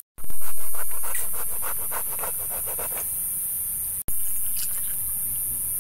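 Knife scraping the scales off a fish on a wooden plank: a quick run of rasping strokes, about five a second. The sound drops out abruptly twice, right at the start and again about four seconds in.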